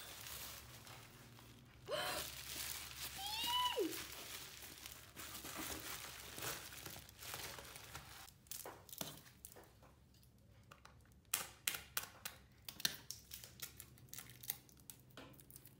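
Plastic bubble-wrap packaging crinkling and rustling as it is pulled open and off a parcel, with a brief squeak that rises then falls about three seconds in. From about halfway, the rustling gives way to a run of sharp clicks and taps as the plastic-wrapped album and poster tube are handled.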